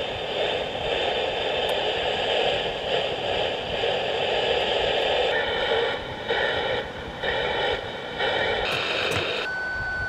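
Hiss and band noise from an amateur HF transceiver's speaker on single sideband. From about five seconds in, a choppy signal cuts in and out, and near the end a steady whistling tone comes in.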